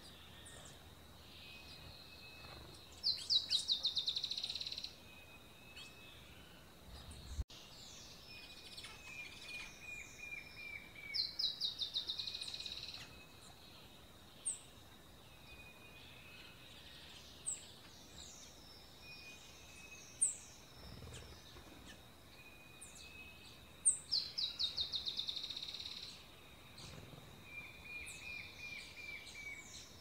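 Wild songbirds singing: three times a trill of quickly repeated high notes lasting about two seconds, with single sharp high chirps and softer chattering calls between, over a faint steady high whine.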